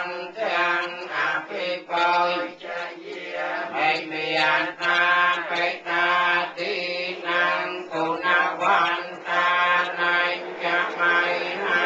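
Buddhist chanting: voices reciting a steady, syllable-by-syllable chant at a sustained pitch, without pause.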